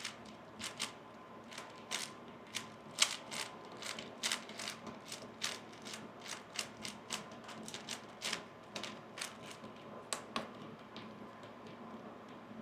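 A 3x3 speedcube being turned quickly by hand: a run of sharp plastic clicks as its layers snap around, a few a second, irregular, dying away near the end.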